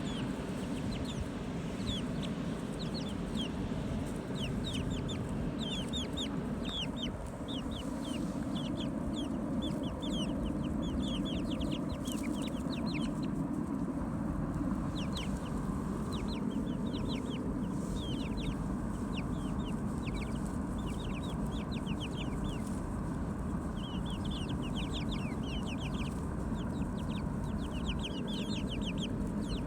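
Chickens calling: many short, high, falling calls in quick clusters, over a steady low background noise.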